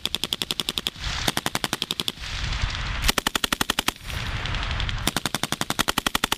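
M240L 7.62 mm belt-fed machine gun firing four bursts of rapid shots, each lasting about a second, with short pauses between them. The last burst is still going at the end.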